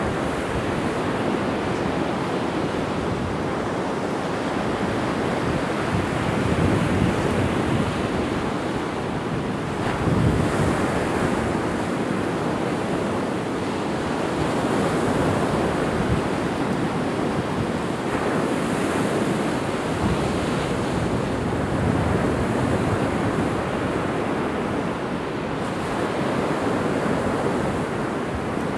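Ocean surf breaking on the beach in a continuous wash that swells and eases as waves come in, with wind blowing across the microphone.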